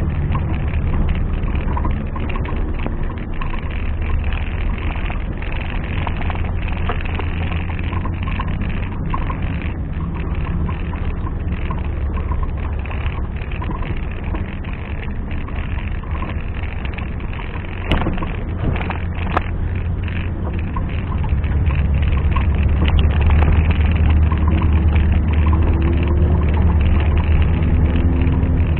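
Off-road 4x4's engine running steadily, with two sharp knocks partway through, then growing louder for the last several seconds.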